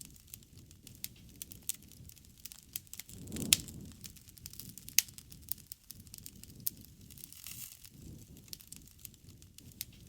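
Wood campfire crackling, with many scattered small pops over a low rush of flame; the loudest is a sharp snap about three and a half seconds in.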